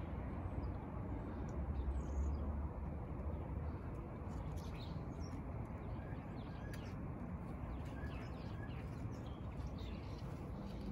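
Outdoor ambience: a steady low rumble with faint, scattered bird chirps every second or two.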